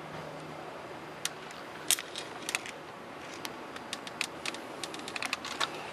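Irregular light clicks and ticks, a sharper one a little under two seconds in and a quicker scatter of them in the second half, over a steady low background noise.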